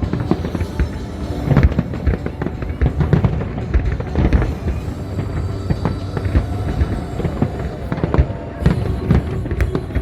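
Fireworks bursting in rapid, irregular succession, bangs and crackles overlapping, with music playing underneath.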